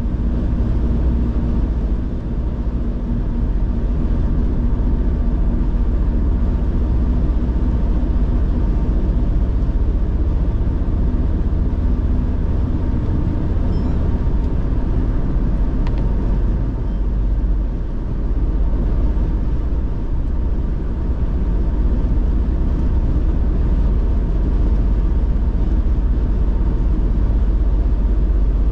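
A car driving at speed, a steady low rumble of road and engine noise.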